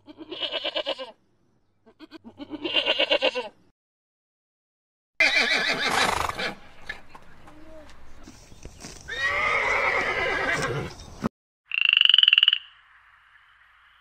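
A goat kid bleats twice in short, quavering calls, then a pony whinnies and snorts over several seconds. About twelve seconds in, a frog gives one short pulsed call.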